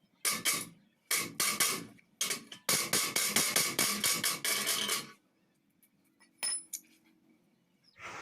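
Slag being cleaned off a 6013 stick weld with hand tools: quick metal-on-steel strikes and scrapes in short groups, then a steady run of about five a second that stops suddenly about five seconds in. Two sharp clicks follow.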